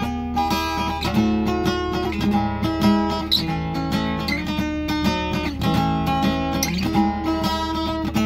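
Cutaway acoustic guitar played solo: a continuous run of picked notes and chords, over a steady low hum.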